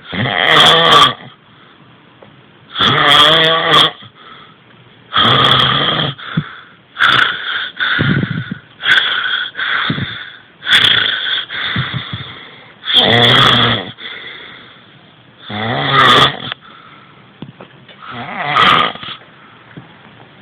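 A person snoring loudly, one snore about every two seconds, each lasting about a second.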